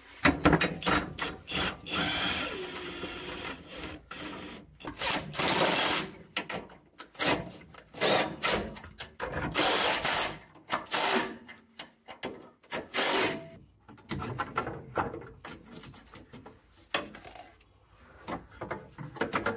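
Irregular metallic clanks, knocks and scrapes of a steel brace bracket being worked into place under a car, with a few short runs of a cordless drill-driver.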